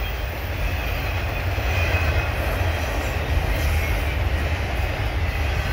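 Double-stack intermodal freight train rolling past: the steady rumble and rattle of its well cars' wheels on the rails.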